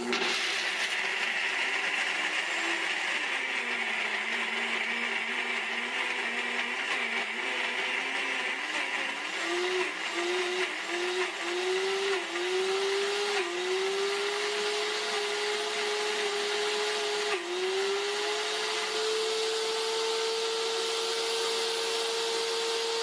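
A 1700-watt NutriBullet RX blender motor runs continuously, grinding whole raw almonds with a little oil into meal for almond butter. Its pitch sits low and wavers at first, climbs in a string of short surges partway through, then holds higher and steady.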